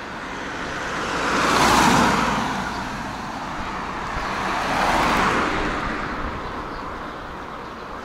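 Two cars passing by on a road one after the other, tyre and engine noise swelling and fading away; the first, about two seconds in, is the louder, the second passes around five seconds in.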